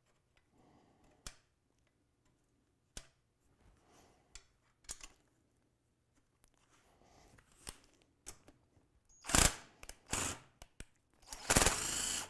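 A few light clicks of metal suspension parts being handled, then a cordless power driver running in two short bursts and a longer run near the end, on the bolt of the snowmobile suspension's rear cross shaft, which is left fairly loose.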